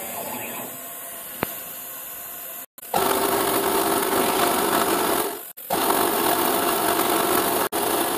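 CNC milling machine running, with a steady hiss from its stepper motors, as it cuts into a plastic plate. The sound gets clearly louder about three seconds in and cuts out briefly a couple of times.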